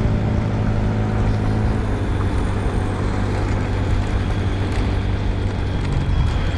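Motorcycle engine running at a steady speed while riding, with rushing wind and road noise.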